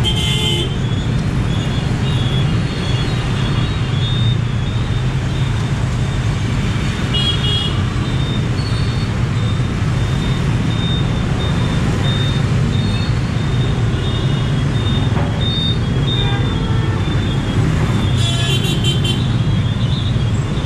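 Steady street traffic noise, with short horn toots at the very start, about seven seconds in, and again near the end.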